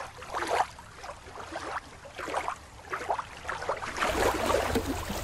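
Water sloshing and splashing in short, irregular splashes around a swimming sea otter. About four seconds in it gives way to shallow water lapping at a rocky shore, with a low wind rumble on the microphone.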